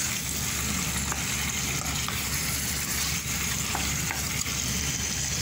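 Raw chicken pieces sizzling in hot oil with sautéed onion as a wooden spatula stirs them, with a few light scrapes of the spatula in the pan.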